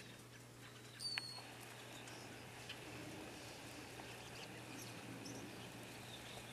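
Quiet outdoor ambience with one short, sharp high chirp about a second in, followed by a few faint ticks and small high calls.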